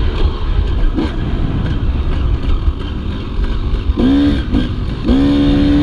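Dirt bike engine on a motocross ride, mostly buried under heavy wind rumble on the microphone; about four seconds in the engine revs briefly up and down, then holds a steady pitch near the end.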